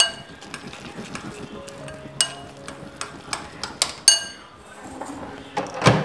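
A spoon clinking against a glass bowl as thick paalkova is stirred: a series of sharp, ringing clinks. Soft background music underneath, and a louder knock near the end.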